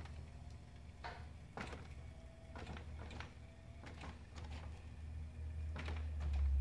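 Jazzy power wheelchair's electric drive motors running with a low hum as the chair drives itself across a concrete floor; the hum grows louder near the end. Scattered sharp clicks sound over it.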